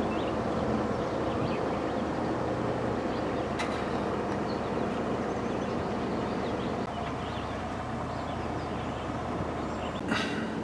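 Vehicle running at steady speed, a continuous rumbling road noise, with a short sharp knock near the end.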